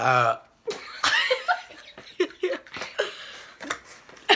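A loud, low burp, over about half a second in, followed by giggling and chatter.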